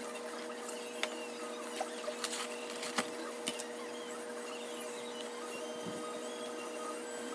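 Handling of a large plastic noodle tub and wooden chopsticks poking and stirring instant noodles soaking in water, with a few sharp clicks in the first few seconds, over a steady hum.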